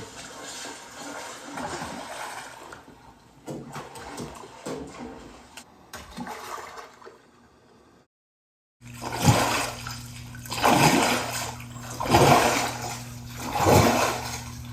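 Water sloshing and rushing, fading out before a brief dropout. After that, four swelling surges of water about a second and a half apart, over a steady low hum.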